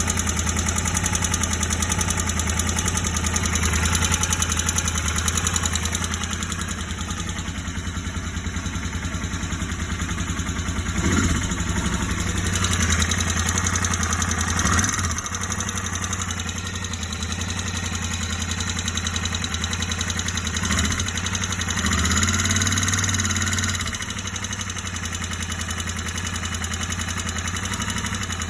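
Royal Enfield Interceptor 650's parallel-twin engine idling with a knocking sound, revved briefly a few times in the middle. The knock appeared after a tappet adjustment, once the bike had been ridden.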